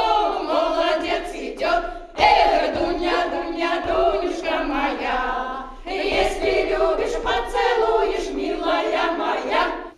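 Choir of elderly women singing together on stage, in long sustained phrases with short breaks for breath about two seconds and six seconds in.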